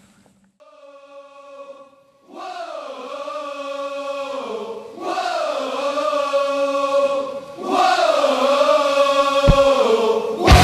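Chanting voice: a held note, then three long wavering phrases, each louder than the last. There is a low thump near the end.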